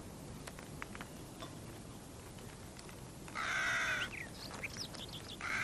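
A crow cawing twice, long harsh calls about three and a half seconds in and again at the very end, with small birds chirping faintly between them.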